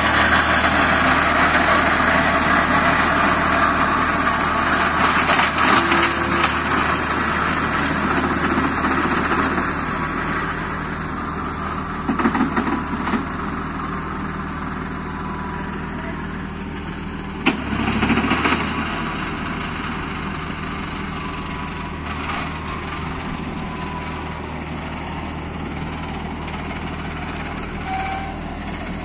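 A Deutz D4006 tractor's air-cooled three-cylinder diesel runs steadily while driving a PTO flail mulcher that shreds undergrowth. The shredding noise is loudest at first and eases off, and a couple of short, louder knocks come about twelve and eighteen seconds in.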